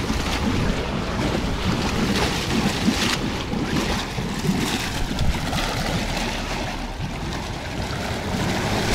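Water churning and sloshing around a Nissan Safari Y60 bogged in deep water, with the engine running low underneath.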